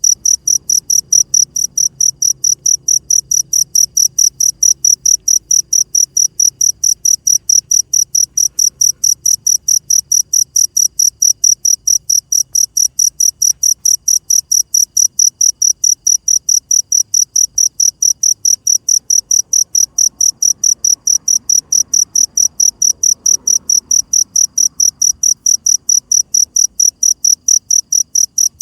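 Cricket chirping steadily at night, a high-pitched chirp repeated evenly about three times a second.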